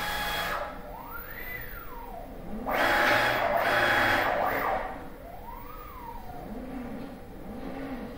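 PrintNC CNC router's axis motors driving the gantry through moves: a whine that glides up and then back down in pitch with each move, several times over. A louder, rougher stretch of about two seconds comes near the middle.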